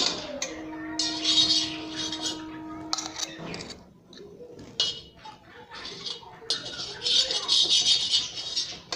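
A steel spoon scraping and clinking against a steel tin and a steel kadhai while scooping out and spreading desi ghee. Near the start a struck steel vessel rings with a steady tone for about three seconds.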